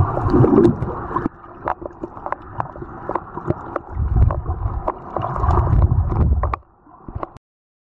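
Muffled underwater sound picked up by a camera held below the surface: water sloshing and rumbling against it, with scattered sharp clicks. It cuts off abruptly near the end.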